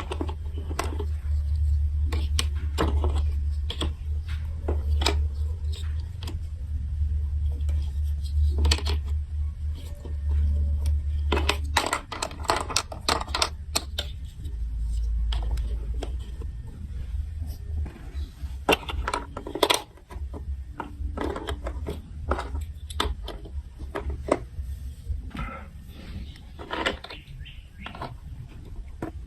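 Plastic marble-run building blocks and marbles clicking and clattering in many small, irregular, sharp clicks. A low rumble runs under the clicks for about the first twelve seconds and returns briefly around fifteen seconds.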